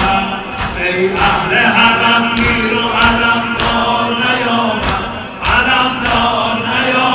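Men chanting a Shia mourning lament (noha) together, kept in time by a steady beat of hands striking chests in sineh-zani, a strike a little more often than once a second.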